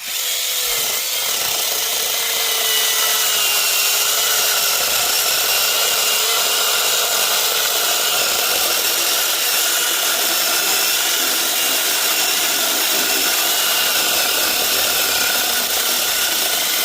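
Voerjia 21V cordless mini chainsaw with a 6-inch bar making its first cut, sawing continuously through wood: a steady electric motor whine under the noise of the chain cutting, building to full level over the first couple of seconds and then holding steady.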